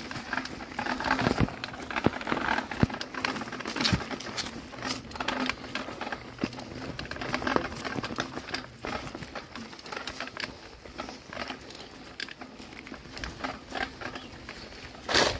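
Mountain bike rolling over a stony dirt track strewn with dry leaves: tyres crunching and the bike rattling with irregular clicks and knocks, and one loud jolt near the end.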